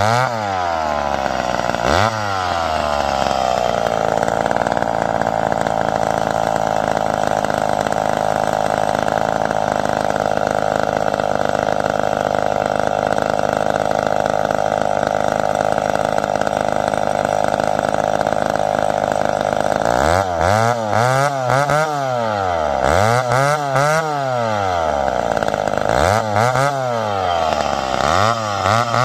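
McCulloch 10-10 two-stroke chainsaw cutting through a log. Its engine note drops as the chain bites in at the start and again about two seconds in, then holds steady under load in the cut. Near the end it is revved up and down about four times.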